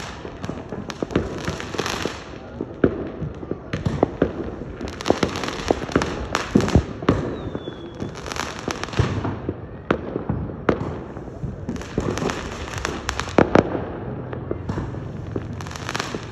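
Continuous aerial fireworks going off, a rapid irregular string of sharp bangs and crackling bursts, some followed by hiss, with a couple of short falling whistles from shells.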